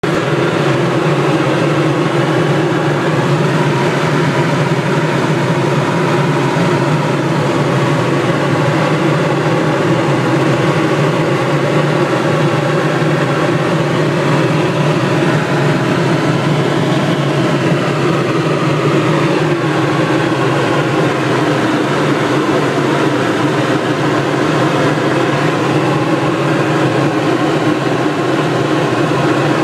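Helicopter in flight heard from inside the cabin: steady, loud engine and rotor drone with no change in pitch or level.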